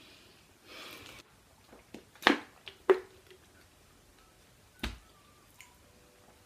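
Mouth noises of someone eating a chocolate donut: a short breath about a second in, then two sharp clicking smacks of the lips and tongue a little past two seconds and again about half a second later, the second with a brief hum. A soft low thump comes near five seconds.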